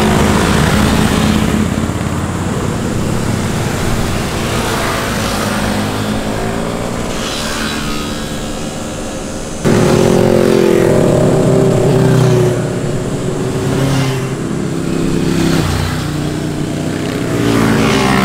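Several motorcycles passing one after another through a corner, their engines rising and falling in pitch as the riders roll off and accelerate. About ten seconds in the sound jumps suddenly to a new, louder set of bikes.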